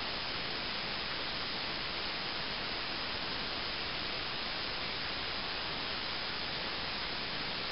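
Water running from a bathtub spout in a thin stream, a steady even rush.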